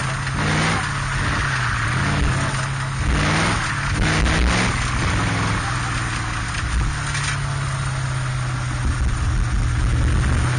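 Cheetah race car's engine heard from the open cockpit, rising in pitch several times in the first few seconds as it accelerates, then holding a steady note, with a hiss of wind and spray over it.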